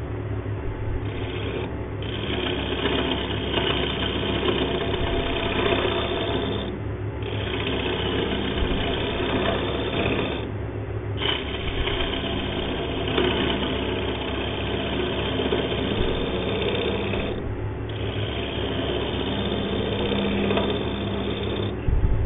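Wood lathe running while a hand-held turning tool cuts a spinning hardwood blank: a steady motor hum under the rough scraping of the cut. The cutting noise drops away for moments several times as the tool comes off the wood.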